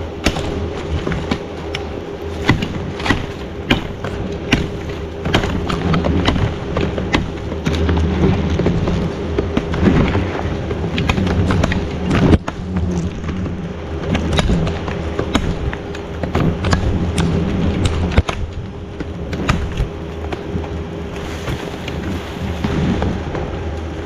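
Tree branches being chopped and cracked: many irregular sharp knocks and snaps of wood over a steady rustle.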